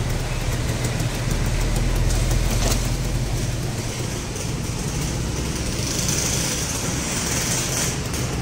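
Kawasaki Ninja 150 R/RR's single-cylinder two-stroke engine idling steadily, heard close up, with a hiss coming in about two-thirds of the way through.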